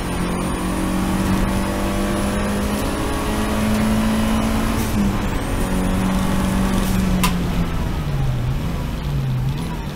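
Seat Leon race car's engine running at high, steady revs, easing off and wavering lower in the last couple of seconds, with a faint high whine over it and one sharp click about seven seconds in.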